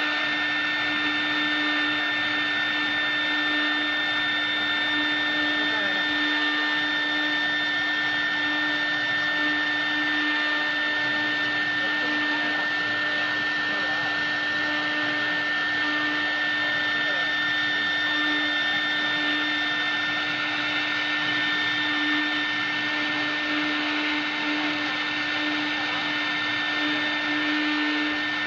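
CNC router spindle running at a steady pitch while its bit carves a wooden cylinder turning on the rotary axis: an even motor whine over a hiss of cutting.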